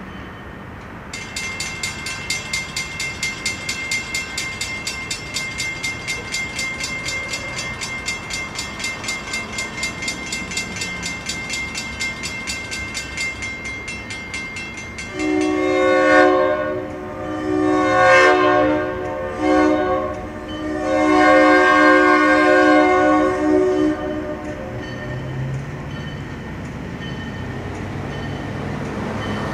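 A railroad grade crossing bell starts ringing about a second in, at about two strikes a second. Then a diesel locomotive's horn sounds the grade-crossing signal: two long blasts, a short one and a long one. Near the end the locomotive's engine rumble grows as it approaches.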